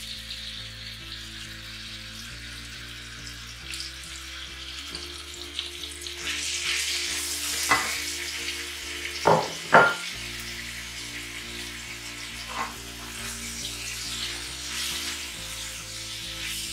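Diced chicken breast sizzling in hot olive oil in a wok-style pan, the sizzle growing louder about six seconds in as it is stirred. A few sharp clicks come from the plastic spatula knocking and scraping against the pan.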